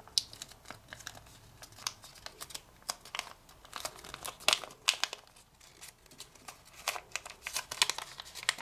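Kami origami paper crinkling and crackling irregularly as fingers bend and curve a thick, many-layered folded model.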